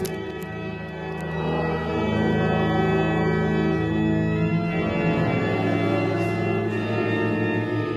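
Church pipe organ playing a hymn in held chords that change every second or two, with the congregation singing along.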